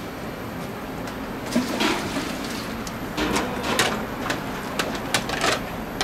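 Pork-bone broth at a steady boil in a large cauldron, while a plastic dipper scoops and pours broth through a wire-mesh strainer. Splashes and several sharp knocks of the dipper against the strainer and pot start about one and a half seconds in.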